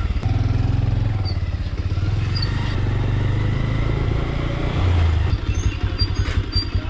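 Motorcycle engine running at low speed as the bike is ridden slowly, briefly louder about five seconds in.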